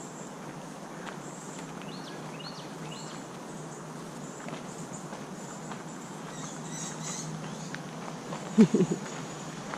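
Garden ambience with a steady hiss and a few short bird chirps about two to three seconds in, then a quick cluster of loud low thumps near the end.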